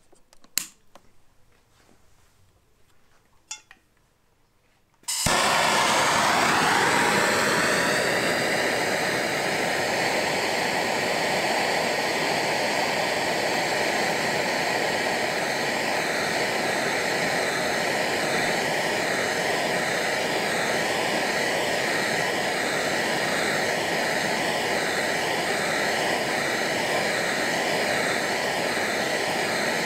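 Two sharp clicks, then a gas blowtorch lights about five seconds in with a sudden whoosh and burns with a loud, steady hiss, heating a cast iron piston ring held open on a steel wedge to set its gap.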